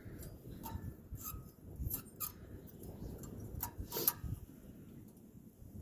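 Light metallic clicks and ticks of new brake pad hardware clips being handled and pressed into place on the caliper bracket, a scattering of separate small taps, some with a short ring.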